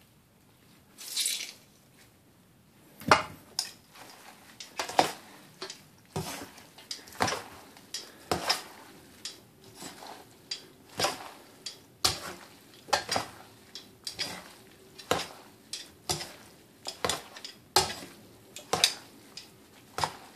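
Metal tongs tossing rice noodles in a stainless steel mixing bowl, the tongs clinking against the bowl about once a second, starting about three seconds in.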